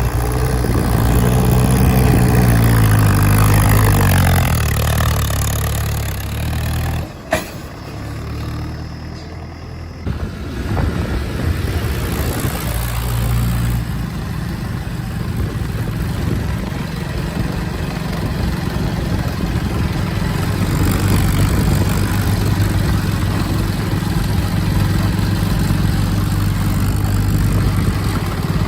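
Diesel engine of heavy farm or earthmoving machinery running, its speed rising and falling over the first several seconds. A sharp click comes about seven seconds in, followed by a quieter lull, and then the engine settles into a steady run.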